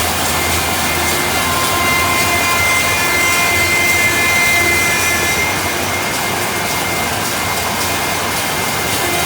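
Sawmill saw running with a loud, steady machine roar and a high whine that strengthens for a few seconds near the middle.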